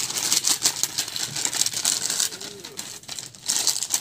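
Foil snack packet crinkling as small puffed snack pieces are shaken out of it onto a plate, with dry rustling and the patter of pieces landing. A short, faint rising-and-falling tone sounds just past the middle.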